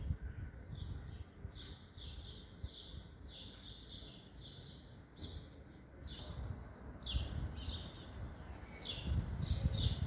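Small birds chirping: short high chirps repeated over and over, roughly two a second, over a low rumbling noise that grows louder near the end.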